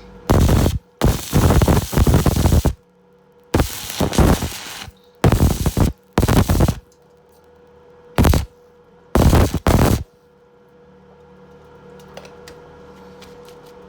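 Electric welding arc crackling in seven short bursts over the first ten seconds or so, the longest lasting about a second and a half, as a patch is welded over a hole in an old water-heater tank to seal it.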